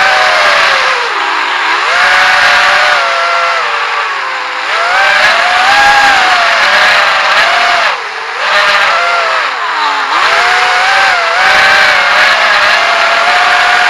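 GEPRC AX-5 racing quadcopter's brushless motors and propellers whining, the pitch rising and falling with the throttle, with brief throttle chops where the whine dips low several times.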